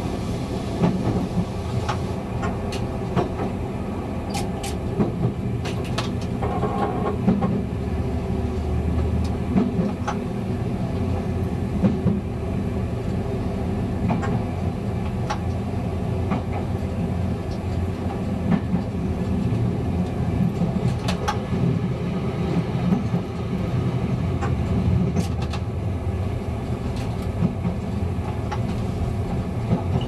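Class 854 diesel railcar running along the line, heard from its driving cab: a steady low drone and rumble, with sharp clicks of the wheels over rail joints every second or so.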